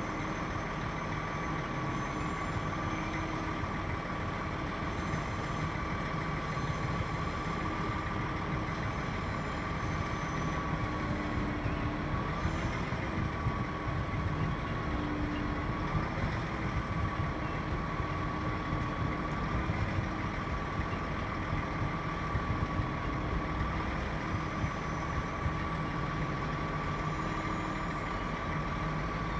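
A heavy diesel engine idling steadily, with a steady high whine running over it that wavers slightly in pitch.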